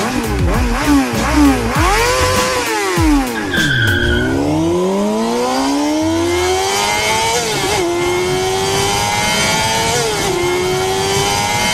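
Race car engine sound effect: quick revs up and down, a short tire squeal about four seconds in, then the car accelerates through the gears, its pitch climbing and dropping back at each of about three shifts.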